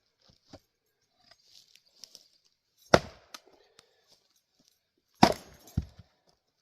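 Casterman Timber Pilot axe striking Douglas fir rounds: two sharp chops about two seconds apart, the second followed half a second later by a dull thud. Small knocks and rustles come between the strikes. The wood is hard and tough to split.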